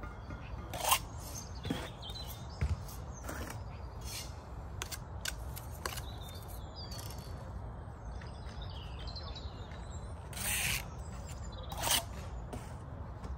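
Steel brick trowel scraping and knocking on mortar and bricks as bricks are laid: a handful of short scrapes and taps, one longer scrape near the end. Faint birds chirp in the background.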